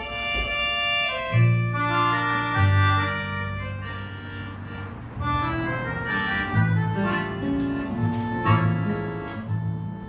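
Instrumental introduction to a song, played on a Roland digital accordion with acoustic guitar accompaniment. The accordion holds sustained, organ-like chords and a melody over moving bass notes.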